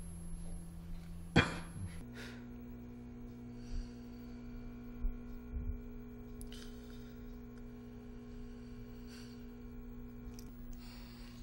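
Quiet background music of long held chord tones, starting about two seconds in and sustained to the end. It is preceded by a low steady hum and a single sharp click about a second and a half in.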